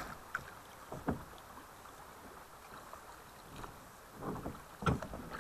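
Steady rush of river water around a drift boat, with a couple of soft knocks, one about a second in and a louder one near the end.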